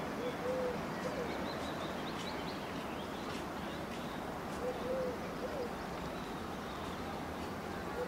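Park ambience: a pigeon cooing twice, once about half a second in and again near five seconds, with small birds chirping faintly. Underneath runs a steady background wash of distant voices and traffic.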